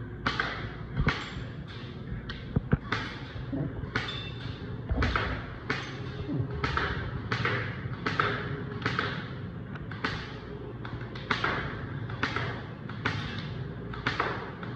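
Rifle-style air gun firing a steady string of single shots, roughly two a second, each a sharp crack that dies away quickly.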